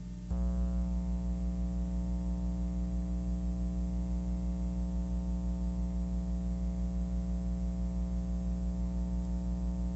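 A steady hum with many overtones that cuts in abruptly just after the start and then holds unchanged, with a slight regular pulsing in its loudness.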